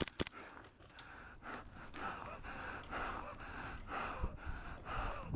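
Two last sharp airsoft gun shots right at the start. Then a player's heavy, rhythmic breathing with footfalls about twice a second while moving.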